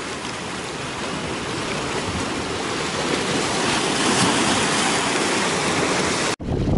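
Sea water washing among shoreline rocks and sand, a steady rushing that slowly swells. Near the end it cuts off abruptly and gives way to wind buffeting the microphone.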